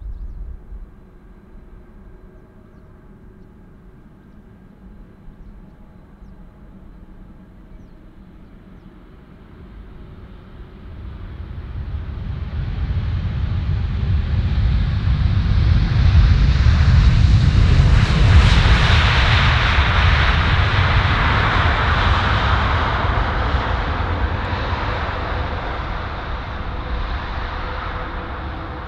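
Jet engine noise of a landing Boeing 787-10, faint at first and then swelling about ten seconds in as the airliner passes close at touchdown. It is loudest a few seconds later and slowly fades as the plane rolls out down the runway.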